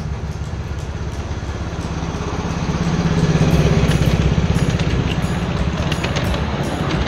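Small engine of a diesel-outline 7¼-inch gauge ride-on miniature locomotive running as it passes close by pulling a passenger train. It grows loudest about halfway through, then stays steady as the riding cars go by.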